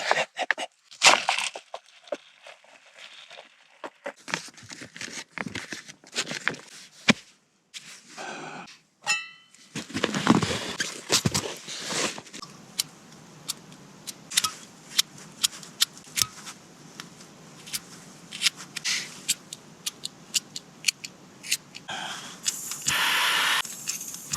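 Rustling and crinkling of gear or packaging being handled, with many small clicks and crackles. A louder noisy rustle comes near the end.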